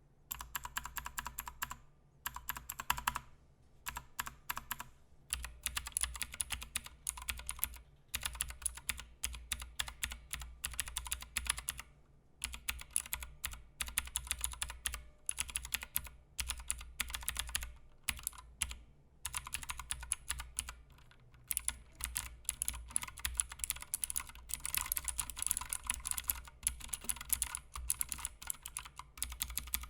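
Typing on a Royal Kludge RK61 60% mechanical keyboard with clicky blue switches and doubleshot PBT keycaps: rapid runs of crisp clicking keystrokes broken by short pauses.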